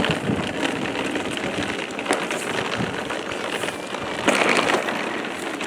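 Small hard wheels of a pulled cart rolling over rough concrete: a steady gritty rattle full of tiny clicks, briefly louder about four seconds in.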